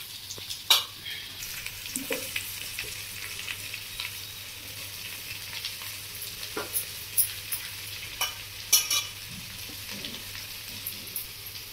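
Moringa leaves and onions sizzling in an aluminium kadai while they are stirred with a steel ladle, which clinks and scrapes against the pan a few times.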